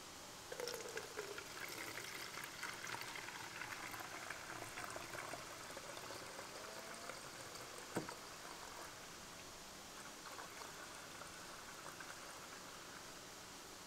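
Coolant poured from a jug through a plastic funnel into a plastic bottle: a faint, steady trickling stream that starts about half a second in and eases off in the second half. One sharp click about eight seconds in.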